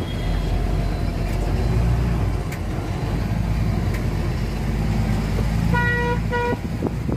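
Truck engine running steadily, heard from inside the cab, with a vehicle horn giving two short toots near the end, the first about half a second long and the second shorter. A knock follows at the very end.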